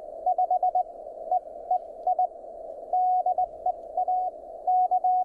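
Morse code (CW) signal received off the air on a ham radio rig: a tone around 700 Hz keyed in quick dots and dashes over a steady hiss of band noise, shaped by an audio equalizer with notch filters.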